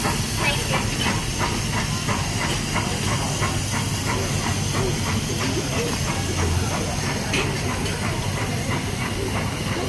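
Steam train with open passenger cars rolling past and away. A steady rhythmic clacking of about three beats a second runs over a constant hiss, and the beats grow fainter in the second half as the train pulls away.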